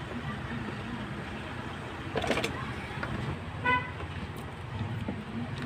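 A vehicle horn gives one short toot about three and a half seconds in, over a steady low background rumble. A brief rustling scrape comes a little over two seconds in.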